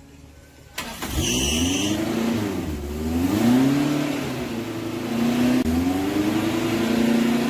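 Restored old truck engine starting up about a second in, with a brief high whine as it catches, then running and being revved up and down several times.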